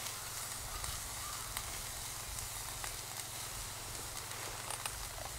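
Small wood campfire of twigs and branches crackling, with scattered sharp pops over a steady hiss.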